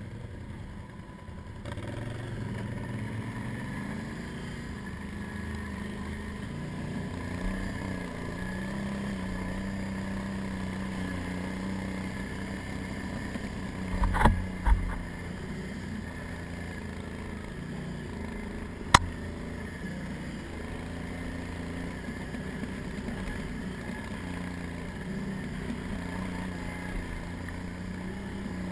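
Can-Am ATV's 800 cc V-twin engine running under way, its pitch rising and falling with the throttle. There are a couple of loud knocks about halfway through and a sharp click a few seconds later.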